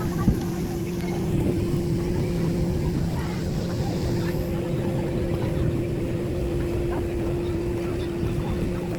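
Motorboat engine running at a steady pitch, with a low hum and background noise underneath.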